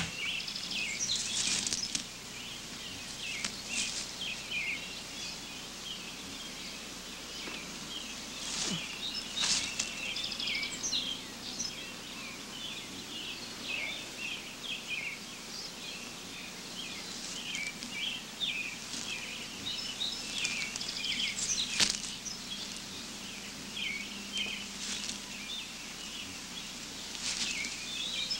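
Woodland ambience: many small birds chirping and twittering irregularly, with a couple of faint sharp clicks.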